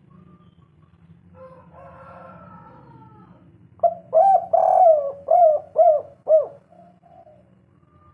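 Spotted dove (tekukur) cooing: one loud phrase of about six rising-and-falling coos starting about four seconds in, the third note held longest. Fainter, softer calls come before it.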